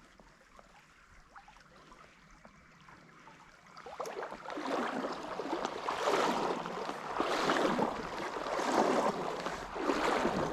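Faint stream background, then about four seconds in, legs wading through shallow stream water: a splashing swish with each stride, roughly one every second and a half.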